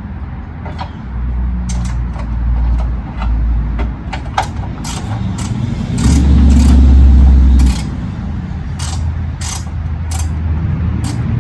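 Hand tools working on a car, a ratchet wrench among them, giving a string of separate sharp metallic clicks over a low rumble that swells loudest about six seconds in.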